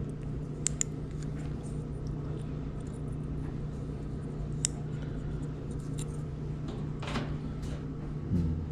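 A few light clicks and a short scrape from handling dryer parts during repair, over a steady low hum.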